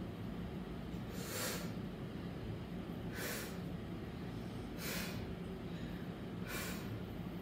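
A lifter's four short, forceful breaths, about one every second and a half to two seconds, taken while standing under a loaded barbell between reps of a 155 lb back squat set. A steady low hum runs underneath.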